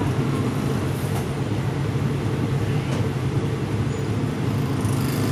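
Steady low running rumble of a moving express passenger train, heard inside the carriage.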